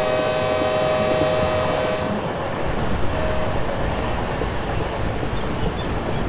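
Train horn held for about two seconds, then cut off, with a short second blast about three seconds in, over the steady rumble of the moving train.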